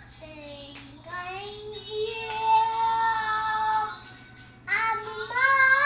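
A small child singing, holding long drawn-out notes, with a brief pause about four seconds in.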